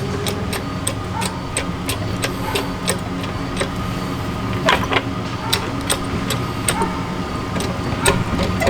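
A car jack being worked, with regular sharp clicks about two to three a second over a steady low hum.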